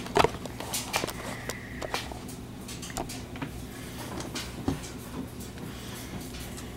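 Light clicks and knocks of handling as a spotting scope is fitted onto a small metal tabletop tripod, with one louder knock right at the start and scattered small taps after it.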